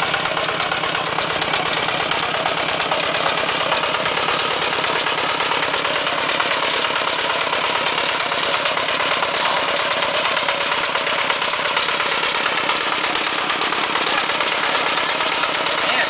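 Walk-behind two-wheel tractor's single-cylinder diesel engine running steadily, with rapid even firing pulses, as it pulls a potato digger through the soil.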